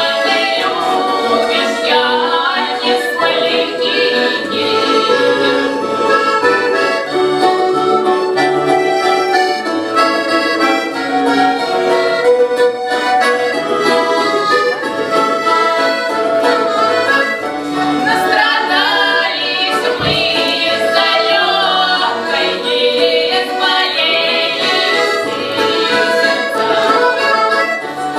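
Accordion playing a Russian folk tune without a break.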